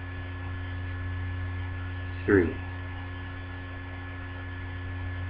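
Steady electrical mains hum, several fixed tones held under the recording throughout. A man's voice says one word about halfway through.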